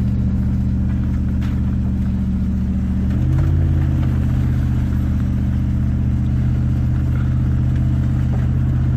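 A vehicle's engine running steadily as it is driven along a wet, slippery dirt road. It picks up a little in pitch and loudness about three seconds in as it accelerates.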